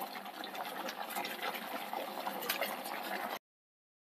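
Thick chickpea curry pouring and sloshing as it is transferred from a steel pot into a clay serving pot, with a few light clicks. It stops abruptly near the end.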